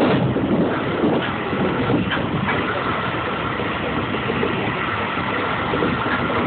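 Seibu 2000 series electric train running along the line, heard from inside the rear car: a steady rumble of wheels on rail, with a faint steady whine and a few light clicks.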